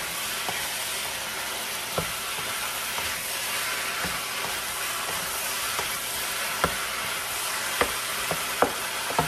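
Cubed beef sizzling steadily as it browns in a frying pan, stirred with a wooden spatula; a few sharp clicks of the spatula against the pan, mostly in the second half.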